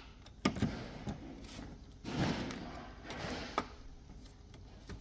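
Handling noise from work on the washing machine's water inlet valves: a few sharp clicks and knocks, with two short stretches of scraping or rustling in the middle.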